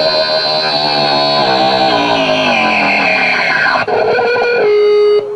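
Live band with a distorted electric guitar played through effects: a tangle of notes slides downward in pitch, then a single note is held steady near the end.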